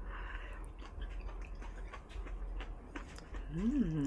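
Close-miked eating sounds of soft hot-pot noodles and tofu: wet chewing with many small lip smacks and mouth clicks, a short breathy sound at the start. Near the end comes a brief hummed 'mm' that rises and then falls.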